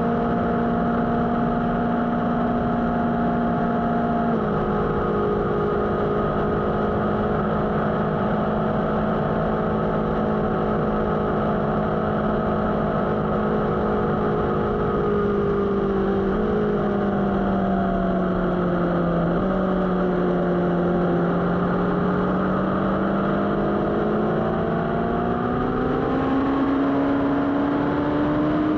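Motorcycle engine running at a steady cruise over a constant rush of noise. Its note drops slightly about four seconds in, sinks gradually past the middle, then climbs steadily again near the end.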